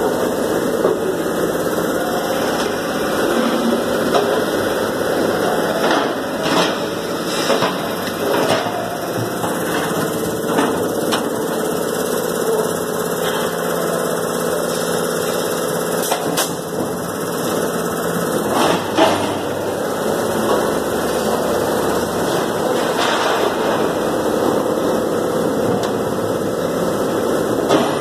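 A steady hum of slaughterhouse machinery, with sharp metal knocks and clanks every few seconds.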